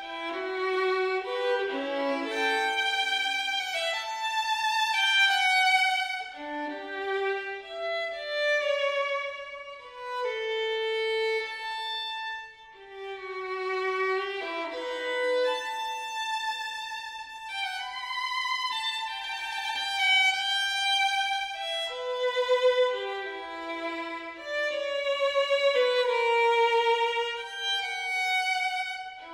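Background music: a violin playing a melody of held notes with vibrato.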